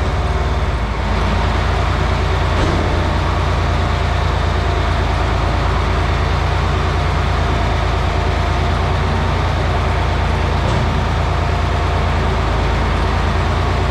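A farm tractor's diesel engine running steadily under a constant load, with a deep, even hum.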